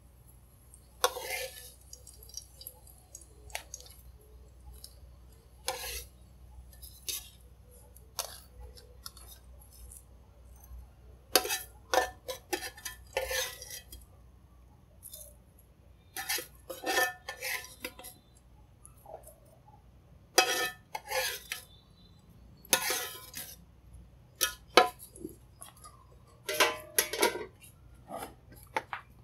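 A spatula scraping and knocking against a frying pan and a ceramic plate as fried food is lifted out and served, in irregular clusters of short clinks and scrapes.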